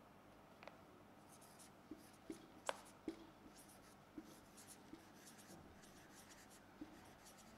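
Faint marker pen writing on a whiteboard: short squeaky strokes with a few light taps as the tip lifts and touches down.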